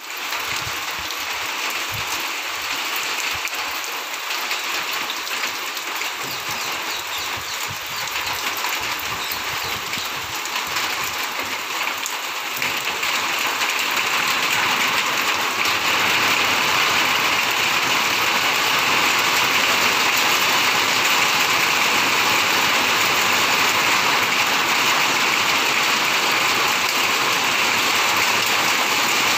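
Steady rain falling on grass and garden leaves as an even hiss, growing louder about halfway through.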